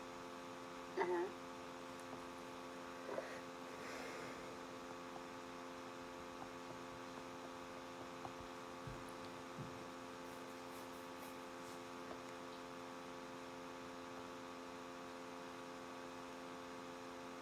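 Steady low electrical hum made of several constant tones. A brief faint pitched sound comes about a second in.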